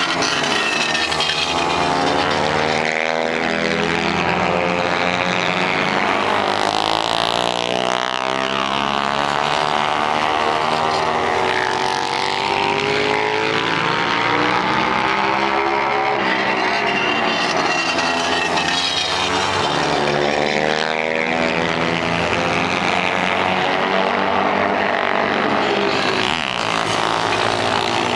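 Several 450cc flat-track motorcycles racing, their engines running hard and rising and falling in pitch as they accelerate and ease off, with bikes overlapping one another. About seven seconds in, one engine sweeps quickly down in pitch as a bike goes by.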